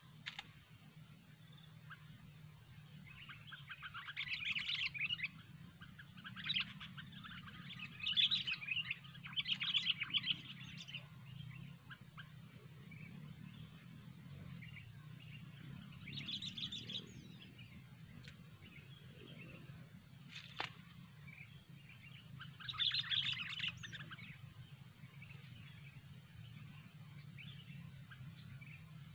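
Sooty-headed bulbul calling in several short bursts of chattering notes, with gaps between them, over a steady low hum. A single sharp click comes about two-thirds of the way through.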